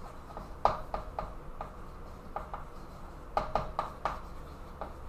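Chalk drawing on a chalkboard: a string of short, sharp, irregular taps and strokes as lines are drawn.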